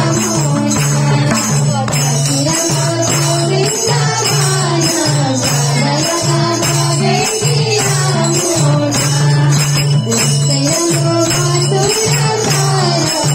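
Live Nepali devotional bhajan music: madal hand drums keep a steady rhythm under bright high percussion strokes, with a melody rising and falling over a steady low drone.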